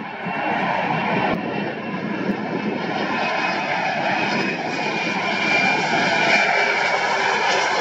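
Bombardier CRJ900 on final approach with landing gear down. Its two rear-mounted turbofan engines give a steady rush with a high whine, growing louder as it passes close by and loudest about six seconds in.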